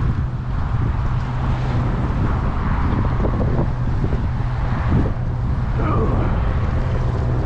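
Wind buffeting the microphone: a steady low rumble with a hiss of moving air over it.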